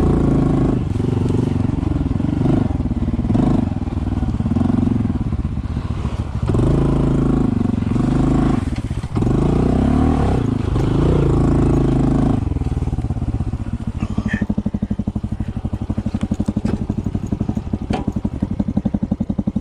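Honda CT125's single-cylinder four-stroke engine running under throttle in uneven surges with brief let-offs, then settling to a steady, evenly pulsing idle about twelve seconds in.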